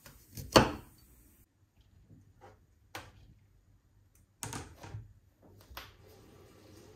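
Kitchen handling knocks: one sharp knock on a cutting board about half a second in, then a few light clatters as broccoli florets are tipped from the cutting board into a bowl.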